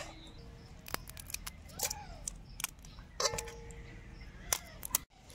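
A knife cutting through firm kadam fruits, giving a few sharp, irregular crunchy clicks.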